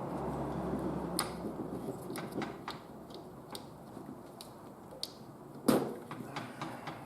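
Scattered clicks and light knocks of hands and tools working on the wiring inside an opened microwave oven, disconnecting a lead, with one louder sharp click near the end.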